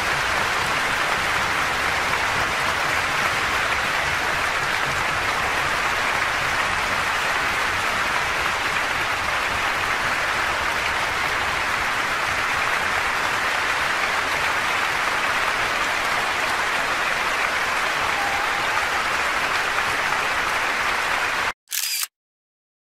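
Audience applauding, dense and steady, cutting off abruptly near the end.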